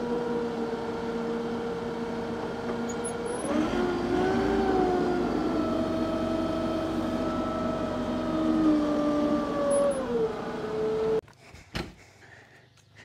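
Tractor engine running steadily, then speeding up about three and a half seconds in as the front loader is raised, and dropping back near ten seconds; the sound cuts off abruptly about eleven seconds in.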